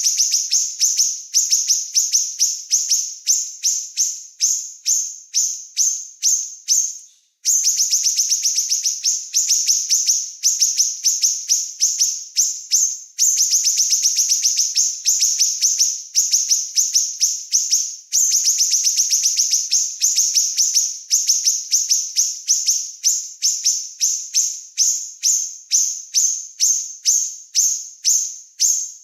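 A small songbird's rapid, high-pitched chirping song, sharp notes fired off in quick runs a second or so long, phrase after phrase, a bird-training recording that breaks off abruptly a few times where it is spliced.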